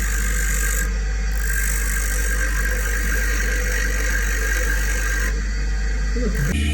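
Grinding wheel running with a steady low hum. A harsh grinding hiss comes and goes as a drill bit is held to the wheel, breaking off about a second in and again about five seconds in.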